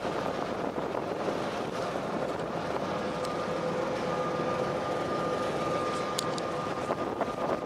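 Ferry boat under way: the steady drone of its engines and the rush of its wake, with a faint steady whine through the middle.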